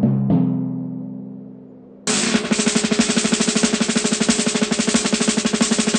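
A low ringing tone struck twice that fades away, then about two seconds in a fast, steady snare drum roll starts up and keeps going: a suspense drum roll.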